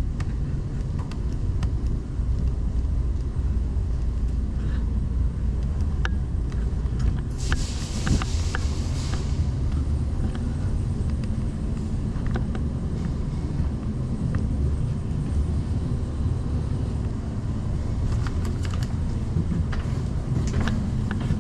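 Steady low rumble of an indoor airsoft arena, with scattered faint clicks and taps. A brief hiss of about two seconds comes about a third of the way in.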